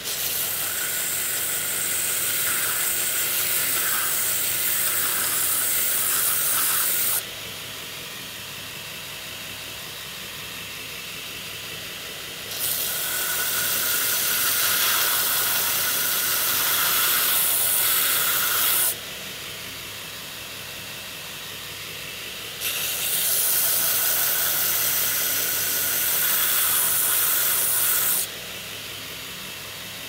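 Belt grinder running with a worn 36-grit belt while a G10 knife handle scale is pressed against it three times, for about five to seven seconds each, to rough-contour it: a loud grinding hiss at each pass, with the grinder's steady running sound between them.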